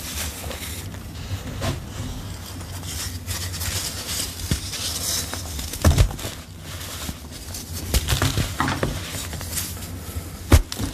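Hands crushing and crumbling soft, dry powder blocks: crumbly crunching with powder sifting down, and sharper crunches about six seconds in and again near the end.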